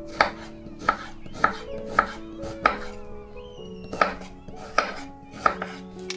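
Kitchen knife chopping an onion on a wooden cutting board: about eight sharp knocks of the blade hitting the board, roughly one every half second or so, with a short pause midway. Soft background music plays underneath.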